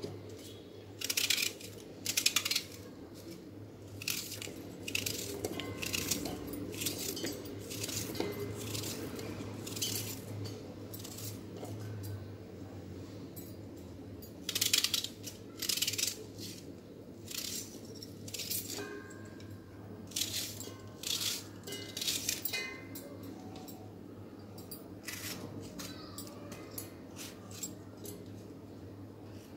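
A knife cutting onion and tomato pieces into a steel mixer-grinder jar: irregular clicks and clinks of the blade and falling pieces against the steel, over a steady low hum.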